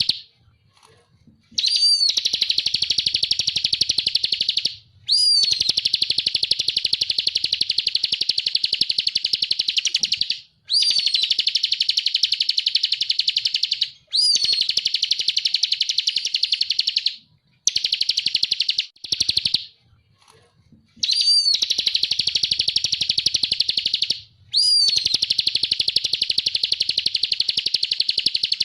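Ciblek kristal (bar-winged prinia) singing: a string of long phrases, each a very fast, rattling trill of repeated high notes that opens with a short sharp note, separated by brief pauses.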